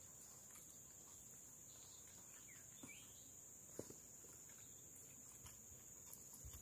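Near silence: a faint steady high-pitched insect drone with a few faint bird chirps, and one soft tap about four seconds in.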